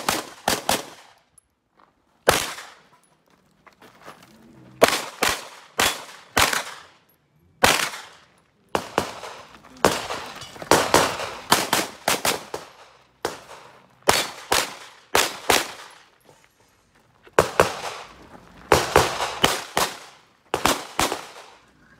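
Pistol shots fired in a practical-shooting stage: rapid pairs and short strings of shots, with breaks of a second or two as the shooter moves between positions.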